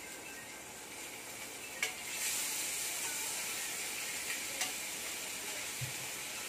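Corned beef frying in a pan, sizzling steadily and getting louder about two seconds in, with a few light clicks of a spatula stirring against the pan.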